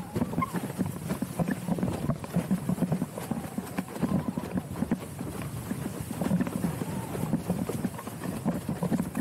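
Fanatic Falcon 106 TE slalom windsurf board planing fast over chop, its hull slapping the water in quick, irregular knocks.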